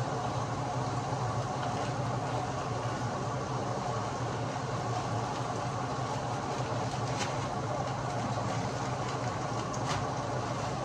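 Steady sizzling of mixed vegetables frying in a pan, over a low constant hum, with a couple of brief plastic-bag crinkles in the second half.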